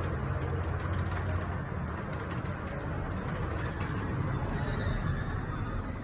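Schindler elevator car riding between floors: a steady low rumble of the car in motion, with rapid light clicking and rattling through the first four seconds or so.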